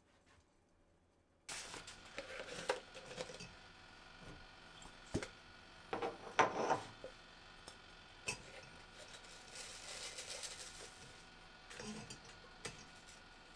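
Food preparation handling sounds: scattered light clicks, taps and short rustles of utensils and food, starting abruptly about a second and a half in.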